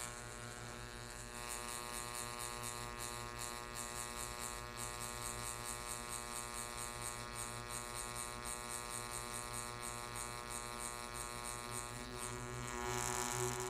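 High-voltage plasma arc from a neon sign transformer buzzing steadily, with a rapidly fluttering hiss as the arc spins around the electrode inside a ring magnet's field. The arc gets louder and hissier near the end.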